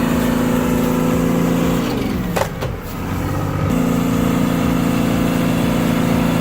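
Bulldozer's diesel engine running under load. Its pitch sags about two seconds in and recovers a little over a second later, with one sharp snap in the dip.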